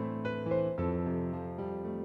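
Background music played on piano or electric keyboard, with notes and chords changing every fraction of a second.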